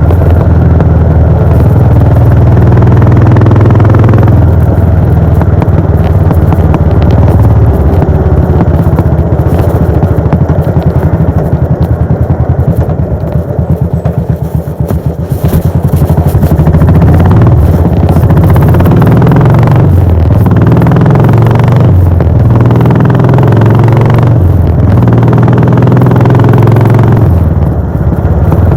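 Royal Enfield Bullet 500's single-cylinder four-stroke engine and exhaust on the move. A steady exhaust note under throttle drops back and softens about halfway through, then picks up again, stepping up and down in pitch several times near the end as it changes gear.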